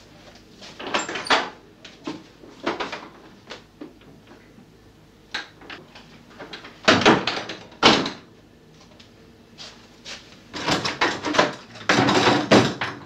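Wooden knocks, rattles and scrapes from a wardrobe and a door being handled, coming in bunches, with the loudest stretches about seven seconds in and near the end.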